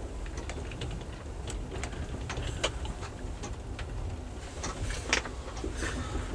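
Low steady rumble of a passenger train running, heard inside the car. Irregular sharp clicks and ticks are scattered over it, a few every second.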